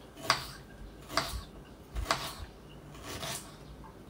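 Blender's plastic lid being pressed and worked down onto its jar, giving four light clicks about a second apart.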